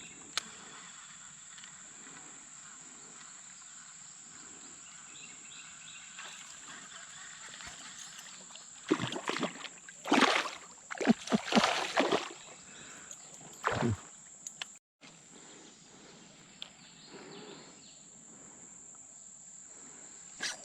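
Water sloshing and splashing around a kayak, with a run of louder splashes and knocks in the middle, over a steady high-pitched insect drone.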